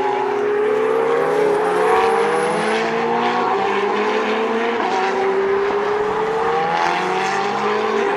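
Ferrari 488 and 458 Challenge race cars' V8 engines running through a corner, several engine notes overlapping, each falling in pitch and then rising again as the cars pass.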